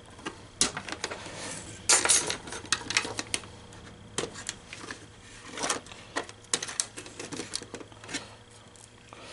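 Irregular clicks and clacks of small plastic and metal parts being handled as an MEI bill validator is taken apart by hand, with a short cluster of louder clacks about two seconds in.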